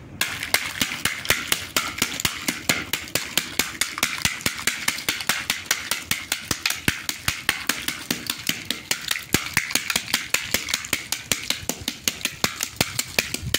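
Wooden sticks beating a heap of dried tamarind pods on a plastic tarp, a fast steady run of about four strikes a second with the brittle shells crackling between blows: the dried shells are being knocked loose from the fruit. The beating starts suddenly right at the start.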